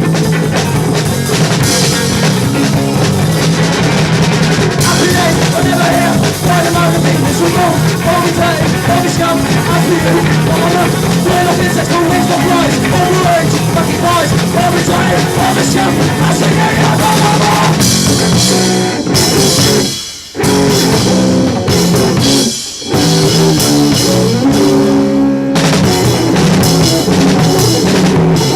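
A live rock band of electric guitar, bass guitar and drum kit playing at full volume. Twice, about two-thirds of the way through, the band cuts out for a split second before crashing back in.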